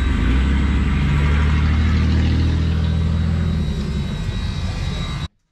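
A motor vehicle's engine running close by, a loud steady low drone that cuts off suddenly about five seconds in.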